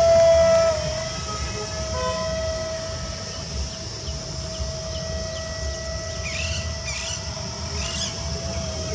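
Small electric motors and enclosed propellers of a toy-grade RC jet whining at a steady pitch, loudest and dipping slightly in pitch in the first second, with low wind rumble underneath.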